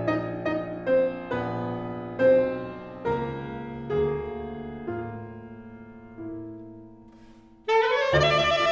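Live contemporary chamber music: a piano plays a slow series of single notes that ring and fade over held tones, the music growing steadily quieter. Near the end the full ensemble, with wind instruments, comes in suddenly and loudly.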